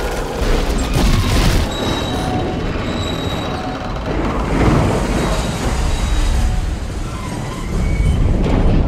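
Film sound effects of a large starship crash-landing: heavy low rumbling and booms, with a score playing underneath.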